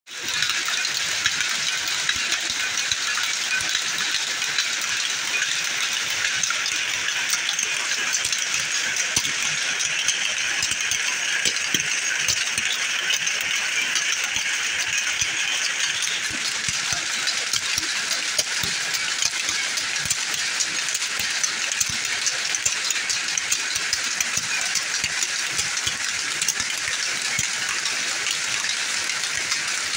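A shed full of shuttle power looms running together: a loud, steady, dense clatter of shuttles being thrown and reeds beating up the weft, with no pause.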